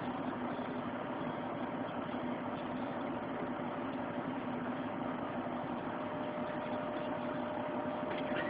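Vehicle engine idling steadily, heard from inside the cab as an even hum. A short squeak near the end.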